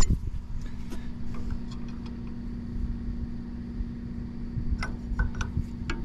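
Small wrench clinking on the steel adjustment bolts of a sawmill guide arm: one sharp clink at the start and a few light ticks about five seconds in, over a steady low hum.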